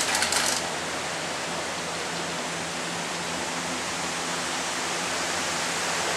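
Gondola lift at work: a short rattling clatter in the first half second as a cabin leaves the station onto the haul rope, then a steady rushing noise with a faint low hum.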